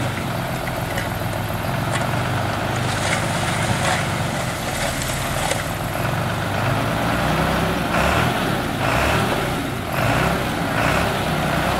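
Heavy diesel engines running steadily, from a stuck 5-ton Nissan Diesel dump truck and a Komatsu D31P bulldozer working behind it. A low drone continues throughout, with a rougher, noisier layer that swells several times, more often in the second half.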